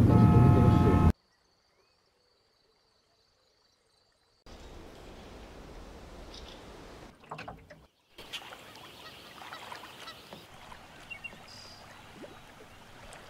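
A car horn sounds for about a second, a steady pitched blare, and cuts off sharply. After about three seconds of near silence, faint outdoor background noise follows with a few small scattered sounds.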